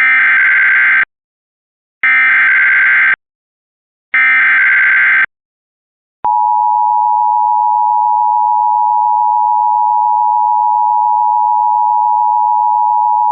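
Emergency Alert System header: three one-second bursts of screeching digital data two seconds apart, then, a little after six seconds in, a loud steady two-pitch attention tone. Together they signal an incoming weather warning, here a severe thunderstorm warning.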